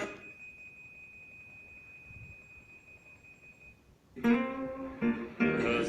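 Radio reception on a Gradiente R-343 receiver: a faint steady high whistle over quiet hiss, then about four seconds in, guitar music comes in abruptly and loud.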